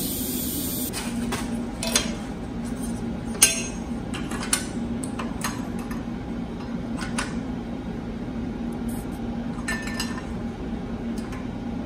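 Scattered light metallic clinks and taps of small steel parts being handled and fitted against a chassis bracket, the sharpest about three and a half seconds in, over a steady low hum.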